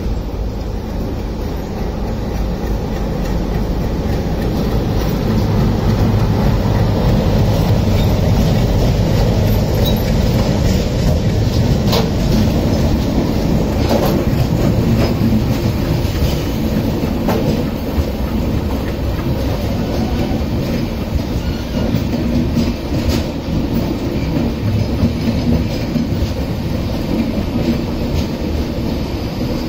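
WDG3A diesel-electric locomotive, with its ALCO diesel engine, running and growing louder as it draws near and passes at low speed, followed by a long train of LHB coaches rolling by. A steady rumble carries sharp wheel clicks over rail joints, loudest in the middle.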